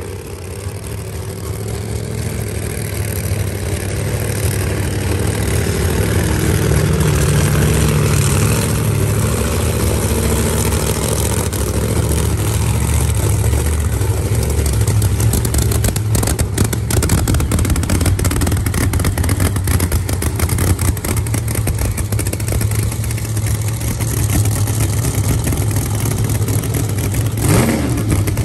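Drag car's 632-cubic-inch nitrous big-block V8 running loud with a deep, uneven rumble, and a short rev near the end.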